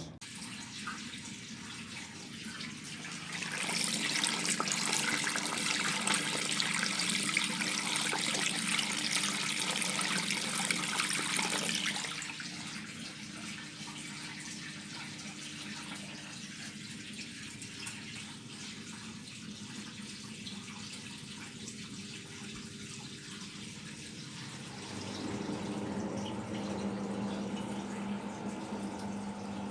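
Bosch Serie 6 washing machine mid-cycle: water rushing in for about eight seconds, then a steady low hum with water in the drum, the hum growing louder near the end.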